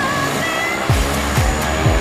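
Background music: a melody over held chords, joined about a second in by a steady drum beat with a deep kick about twice a second and ticking hi-hats.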